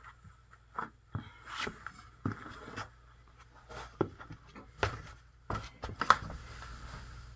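A person's footsteps and shuffling on a hardwood floor: irregular light taps, knocks and scuffs, the loudest knock about six seconds in.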